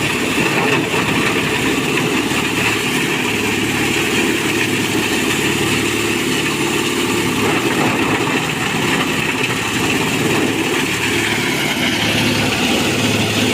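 Engine-driven chopper-grinder for cassava stems running steadily, with a continuous engine drone.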